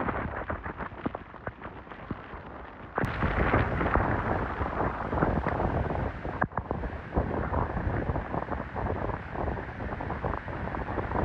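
Strong tropical-cyclone wind gusting through palm trees, then, after a sudden change about three seconds in, heavy storm surf breaking on a beach under a deep, steady wind rumble buffeting the microphone.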